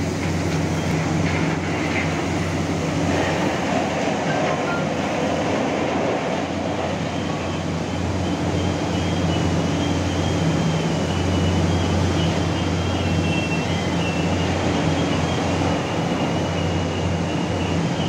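Heavy diesel engine of a Hitachi EX1200 excavator on a floating crane running steadily while loading coal: a constant deep engine drone with a faint high whine over it.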